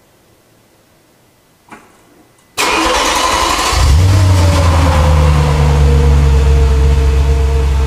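Audi B7 S4's 4.2-litre V8 with a Milltek exhaust, heard close at the tailpipes, starting up: it cranks and catches suddenly about two and a half seconds in. It then settles into a steady, deep idle, its pitch easing down slightly as the revs drop back.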